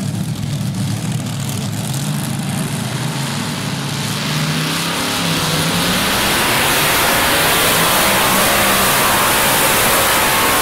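Multi-engine modified pulling tractor running at full throttle as it launches and hauls the weight sled down the clay track. The engine noise grows louder about halfway through as the run gets under way.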